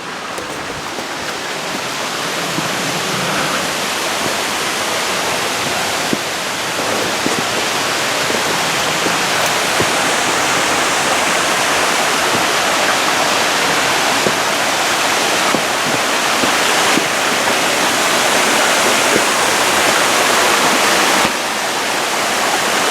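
Seasonal canyon waterfall running full after heavy rain: a steady rush of falling water that grows gradually louder over the first several seconds.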